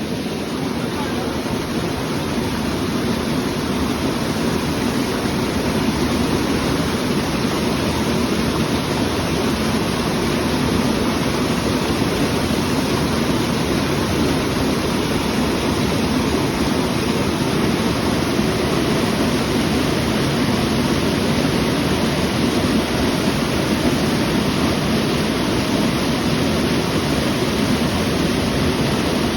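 Mountain water rushing over stones, a steady, unbroken rush.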